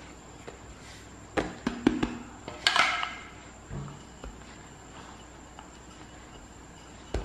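A few light knocks and taps of a wooden rolling pin and hands on a kitchen countertop as soft dough is rolled out, the loudest about three seconds in, with quiet stretches between.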